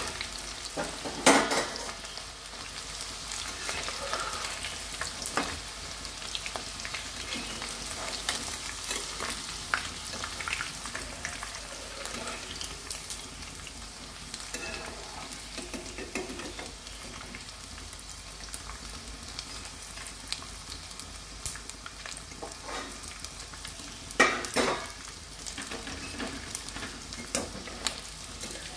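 Batter-coated chicken pieces deep-frying in hot oil in a kadai, a steady sizzle, as a steel spatula and wire skimmer scrape and clink against the pan lifting the fried pieces out. Two louder knocks of utensil on pan, one about a second in and one near the end.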